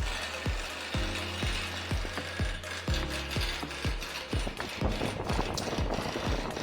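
Background music with a steady thudding beat about twice a second over a held bass line, with rapid ratchet-like clicking that grows denser in the second half.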